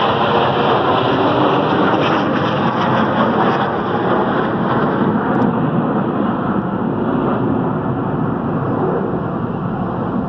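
Jet engine noise from six Blue Angels F/A-18 Hornets passing over in formation: a steady, heavy roar that eases off slowly toward the end.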